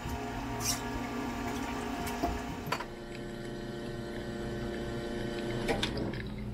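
Commercial espresso machine's pump running steadily while a shot is extracted, with a few light clicks along the way.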